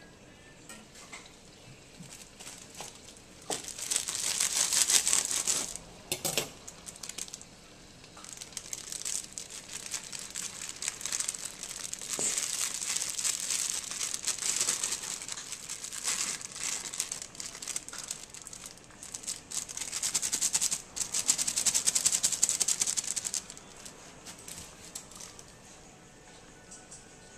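Plastic bags crinkling and rustling in several long bouts as cooked rice is squeezed out of them by hand into a wok. The crinkling dies away near the end.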